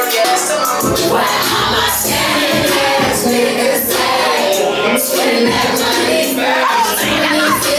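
Background music: a song with sung voices over a steady beat.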